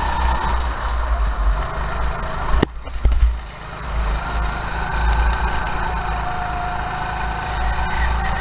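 Go-kart engine heard onboard while racing, running at speed with a steady note. About three seconds in it briefly drops away, then rises in pitch again as the kart accelerates.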